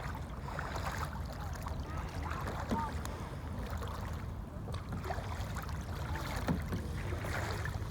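Water lapping and dripping around a kayak, with small splashes and short gurgling blips, over a steady low rumble.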